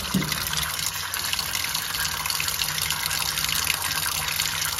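Tap water running steadily into a pot of gembili tubers in a stainless steel sink, splashing over them as they are rinsed.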